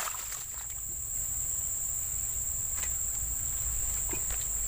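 Steady high-pitched insect chorus, a continuous cricket-like chirring, over a low rumble.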